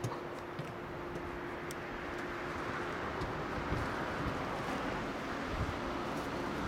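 A JR 485-series electric train moving off slowly from a siding: a steady rumble of motors and wheels that builds louder from about two seconds in, with a steady hum underneath that fades out about halfway.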